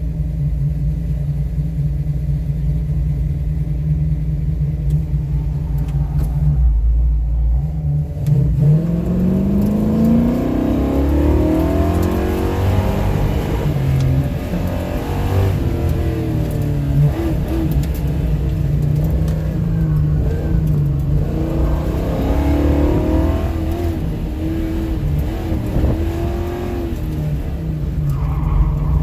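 Car engine idling for about seven seconds, then launching hard and accelerating, its pitch rising and falling again and again as it is revved up and eased off through an autocross run.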